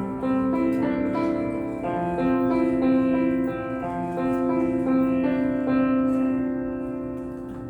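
Solo piano playing slow, sustained chords and melody notes, the sound dying away over the last couple of seconds as the notes ring out.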